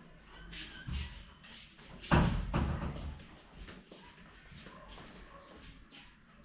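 A wooden door shut with a bang about two seconds in, after a smaller knock, followed by footsteps across a tiled floor.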